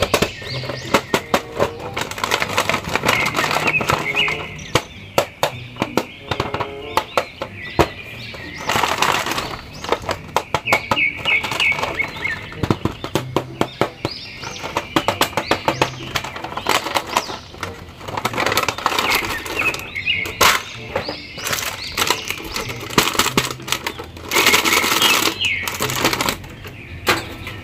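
Cardboard toy box and plastic packaging being handled and opened, with sharp clicks, rustling and crinkling of a plastic bag as an action figure is pulled out, over background music.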